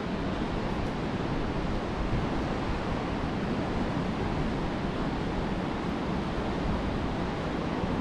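Steady noise of wind and breaking surf from a stormy Baltic Sea, with wind buffeting the microphone.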